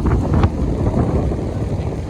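Strong sea wind buffeting the microphone: a loud, rough rumble that flutters unevenly.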